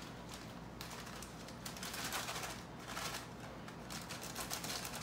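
Crinkly packaging rustling and crackling in several irregular bursts as it is handled.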